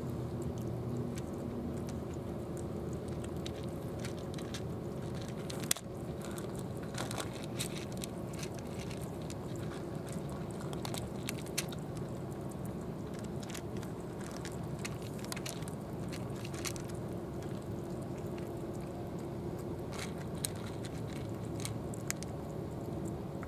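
Two cats eating dry kibble and wet food from plastic bowls: irregular crunching and chewing with small clicks. One sharp click about six seconds in is the loudest sound.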